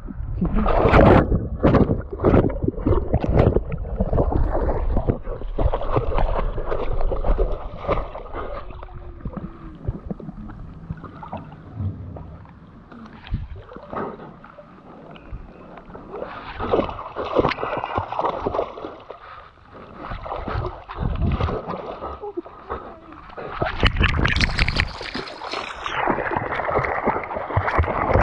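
River water splashing and sloshing irregularly, as if someone is wading and moving through it, with many short splashes. It is quieter through the middle and picks up again near the end.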